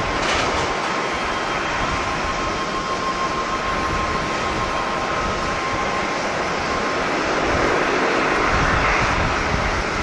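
Dash 8 turboprop taxiing: a steady rush of engine and propeller noise with a faint high whine that fades about two-thirds of the way through. Wind buffets the microphone near the end.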